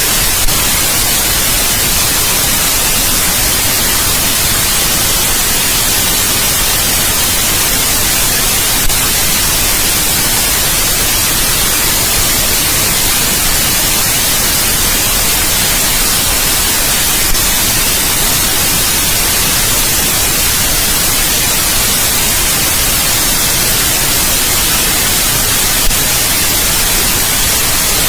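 Steady synthetic white noise, an even hiss across the whole range, strongest in the treble, with a faint click about every eight and a half seconds.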